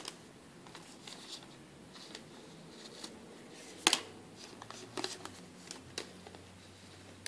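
Handling sounds of a thick booklet trading card being held and moved by hand: scattered light clicks and small rustles, with one sharper click about four seconds in.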